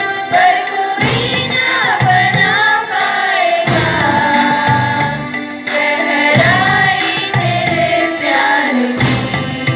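Group singing with musical accompaniment and a steady beat, the voices holding wavering melodic lines.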